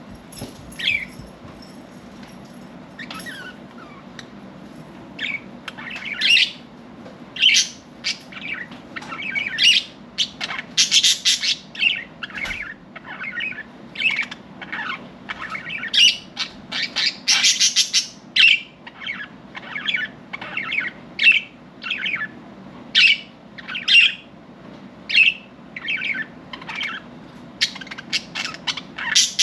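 Pet budgerigars chirping and twittering: a continual run of short, high chirps, with a few denser bursts of chatter.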